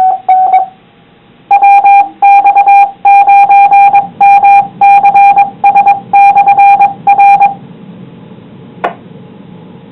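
Amateur radio repeater sending its Morse code identification as a loud, steady beeping tone keyed into dots and dashes of differing lengths, after two short beeps at the start. Once it stops, only faint radio hiss remains, with a single click near the end.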